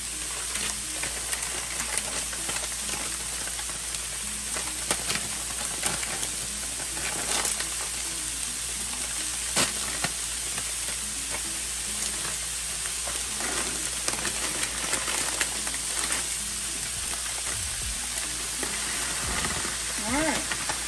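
Onions and frozen mixed vegetables frying in oil in a hot pan: a steady sizzle with scattered crackles and pops.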